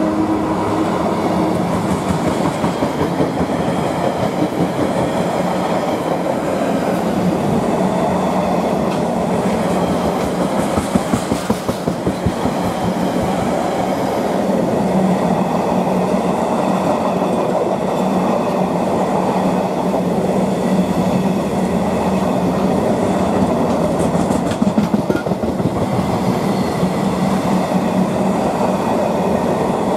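Container flat wagons of a freight train rolling past: a steady rumble of steel wheels on the rails, with clickety-clack from the wheels over rail joints, most marked about eleven seconds in and again near twenty-five seconds.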